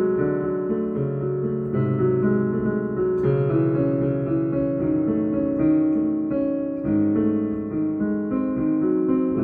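Piano being played: a continuous run of notes and chords at a moderate pace.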